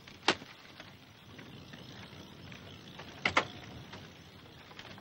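Car door of a small Fiat 500 being unlatched and swung open: a sharp click about a third of a second in, then a quick double clunk about three seconds in, over a faint low rumble.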